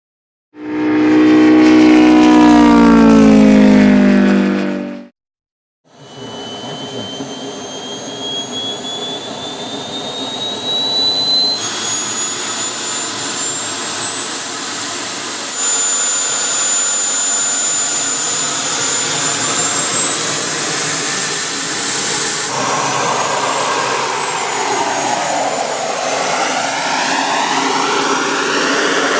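JetCat P-400RX turbine of a large-scale L-39 model jet running with a high whine that rises in pitch in stages, then holds steady near the top. It is preceded by a loud sound of about four seconds that falls in pitch, followed by a second of silence.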